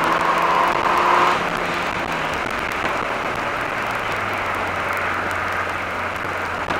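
Onboard sound of a 1998 Mercedes-Benz SLK 230 Kompressor's supercharged 2.3-litre four-cylinder engine pulling with its pitch rising slightly. About a second and a half in, it drops in loudness and pitch and settles to a low, steady hum under road and wind noise.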